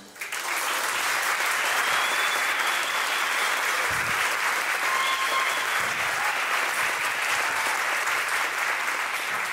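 Audience applause breaking out as the last sung chord of an ensemble number stops, holding steady and starting to die down near the end.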